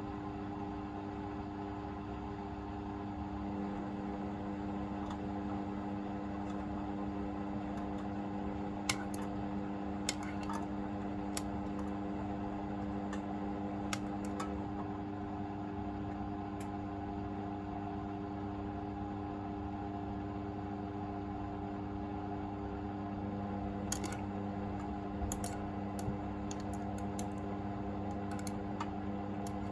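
Hoover VisionDynamic washing machine in its anti-tangle phase after an unbalanced spin: the drum motor runs with a steady hum, turning the drum to loosen and redistribute the load. Scattered light clicks come through it, a few at first and a cluster near the end.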